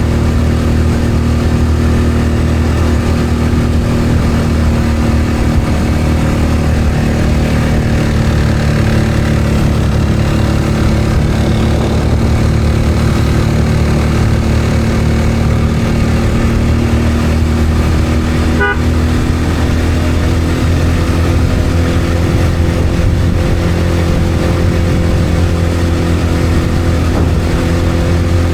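Motor vehicle engine running steadily on the road, with the even hiss of road and wind noise, holding a constant pace throughout.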